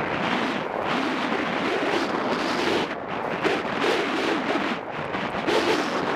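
Skis carving and scraping on packed snow during a giant slalom run, mixed with wind rushing over the skier's camera microphone; a steady rough noise that rises and falls through the turns.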